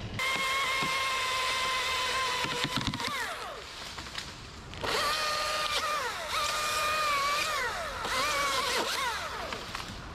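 Two-stroke chainsaw running at full throttle while cutting through a limb, its pitch falling away about three seconds in as the throttle is let off. It is revved up again about a second later and cuts on, with several short drops in pitch before it eases off near the end.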